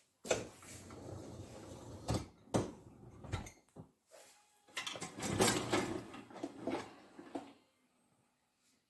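Irregular knocks, bumps and scraping, as of things being handled or moved, going quiet near the end.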